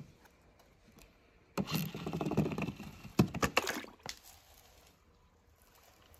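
A toy monster truck plunging into a clear plastic tub of water covered with floating plastic balls: a burst of splashing and rattling about one and a half seconds in, lasting some two and a half seconds, with a sharp knock partway through.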